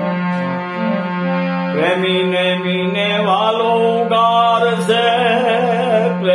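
Gujarati devotional bhajan: a steady low drone with an instrument playing a stepping melody, then about two seconds in a man's voice comes in, holding long wavering sung notes without words.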